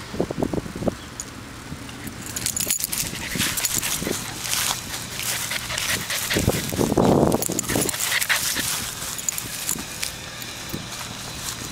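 A chocolate Labrador puppy panting and snuffling close to the microphone, over a crackly rustle of grass and handling. A louder, rough burst comes about seven seconds in, as the puppy noses right up to the microphone.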